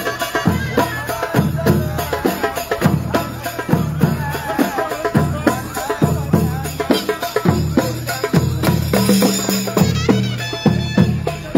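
Music with a heavy, repeating drum beat under a wavering melody line.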